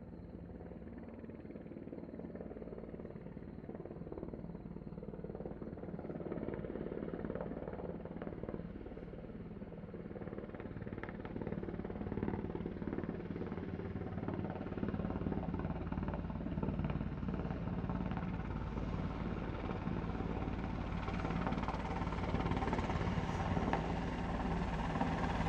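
Two U.S. Navy helicopters approaching, their rotor and engine noise growing steadily louder as they close in.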